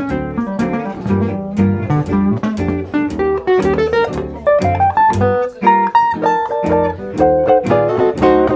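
Gypsy-jazz combo playing an instrumental passage. An acoustic guitar picks a single-note solo line that climbs in pitch about halfway through, over a steady strummed rhythm and double bass.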